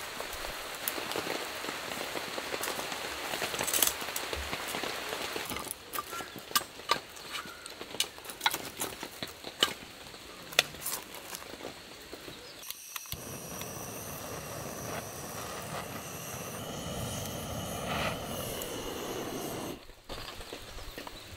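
Rain pattering steadily, then a few sharp wooden knocks as split firewood is laid on a mesh fire pit, then a small wood fire burning with soft crackles.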